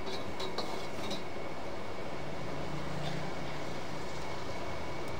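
Gas wok burner running steadily under a wok of simmering noodles in gravy, with a few light clinks of a metal ladle against the wok in the first second or so.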